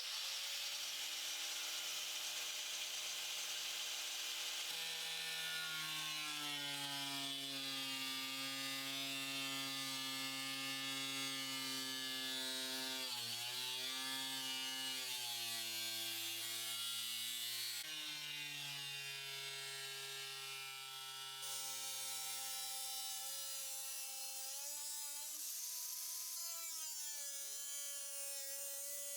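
Power cut-off tool with an abrasive cutting disc, cutting through the rusted sheet-steel floor pan of a 1967 VW Beetle: a steady whine whose pitch sags and recovers a few times as the disc is loaded.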